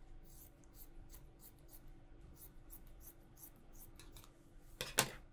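Dressmaker's scissors snipping through fabric, cutting a slit into a bodice piece: a run of faint, quick snips, about three or four a second, with one louder click near the end.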